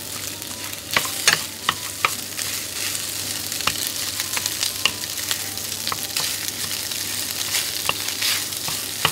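Sushi rice and fish sizzling in oil in a frying pan on high heat, with a wooden spatula scraping and knocking against the pan as it stir-fries and breaks up the rice. A steady sizzle carries frequent sharp clicks from the spatula.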